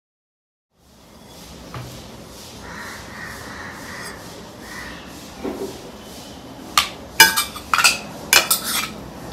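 Dishes and cutlery clinking: a soft knock about midway, then a quick run of sharp clinks near the end.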